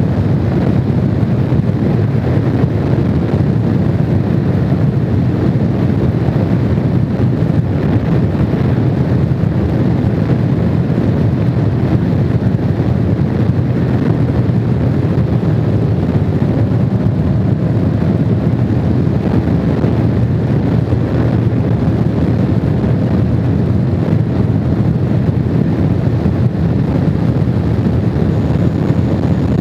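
Honda VFR750 motorcycle's V4 engine running at a steady cruise, mixed with constant wind rush on the microphone.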